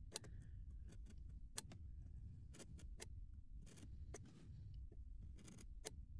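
Craft knife blade scoring 2 mm construction card along a steel rule: a run of short, faint scratches and clicks, about a dozen, irregularly spaced, over a low rumble.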